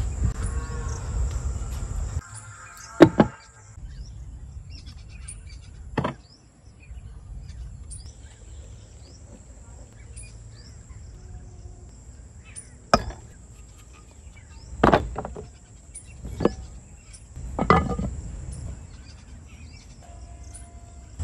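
Sounds of outdoor food preparation: about six sharp knocks of a steel bowl and utensils being handled, spaced a few seconds apart. They sit over a steady high-pitched insect drone. A low rumbling handling noise at the start stops after about two seconds.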